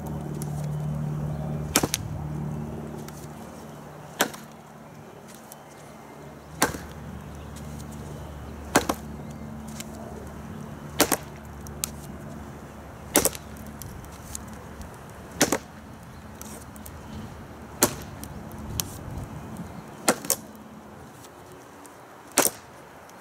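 TOPS Bushcrafter Kukuri 7 kukri chopping into a wooden stump: about ten sharp whacks, evenly spaced a little over two seconds apart.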